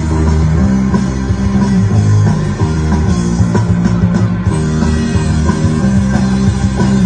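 Live rock band playing an instrumental passage on electric guitars, bass and drum kit, with no vocals.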